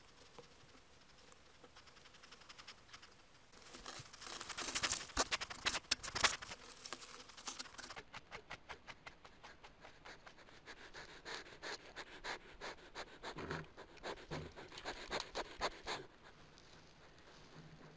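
An animal right at the trail camera making rapid, rhythmic huffing and scratching sounds. They are loudest a few seconds in, carry on in quicker pulses, and stop a couple of seconds before the end.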